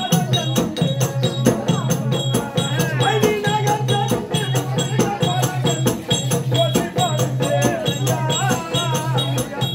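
Live Tamil folk-drama music: a steady low drone under a wavering, ornamented melody line, with regular percussion strokes and rattling jingles.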